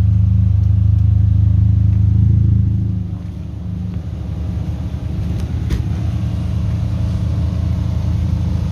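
Car engine running loudly and steadily, then dropping back about three seconds in to a rougher, pulsing idle.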